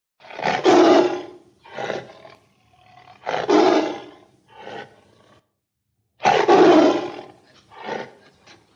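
A large animal roaring: three loud roars, each followed by one or two shorter, weaker calls.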